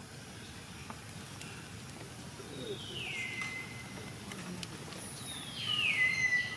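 Two high-pitched animal calls, each sliding down and then holding its pitch for a moment. The second, near the end, is the louder. They sound over a steady outdoor background.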